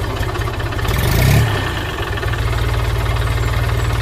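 An engine running steadily with a rapid low chugging pulse, swelling briefly about a second in.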